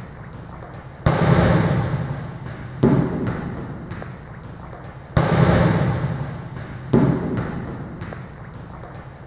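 Heavy booming thuds, each ringing out for a second or more, coming about every two seconds, five times in all.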